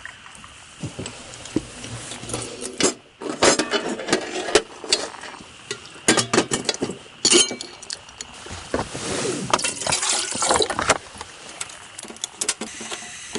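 Metal camp cookware and utensils clinking and knocking as they are handled, with liquid poured or sloshed among them.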